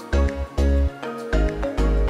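Background music with a steady, heavy bass beat under melodic notes.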